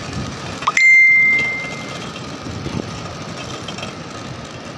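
A small bell struck once about a second in, giving a single clear ding that rings on and fades over about a second, over steady background noise.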